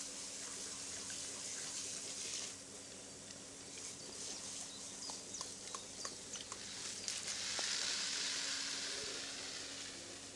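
Fine water spray hissing steadily, swelling louder for a couple of seconds about two-thirds of the way in, with scattered faint ticks of droplets.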